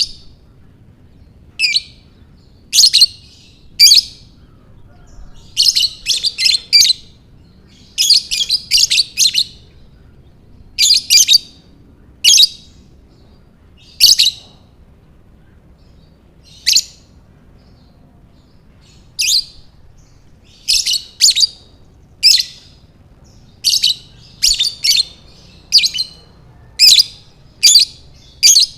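Lovebird chirping in short, high, rapid bursts of chatter. The bursts come in clusters with pauses of a second or two between them.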